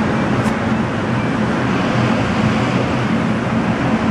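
Steady rushing air with a low, even hum from an indoor shooting range's ventilation system.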